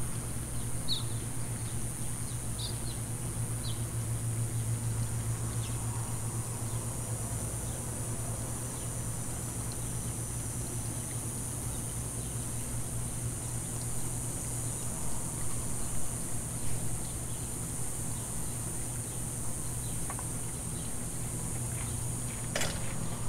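Outdoor background: a steady low hum under a steady high-pitched hiss, with a few faint short chirps in the first few seconds and a single sharp click near the end.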